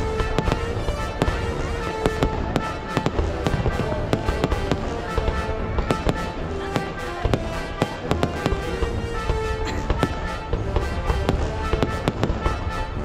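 Fireworks going off, a dense run of bangs and crackles several a second, over music with held notes.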